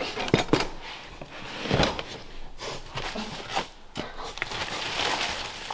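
Debris being handled by hand: a few sharp knocks and scrapes as a thin wooden board is picked up and moved, with some rustling.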